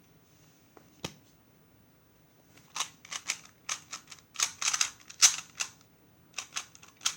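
Plastic clacking of a 2x2 speedcube being turned fast during a timed solve. There is one click about a second in, then rapid runs of turning from about three seconds in, with a short break before the last run.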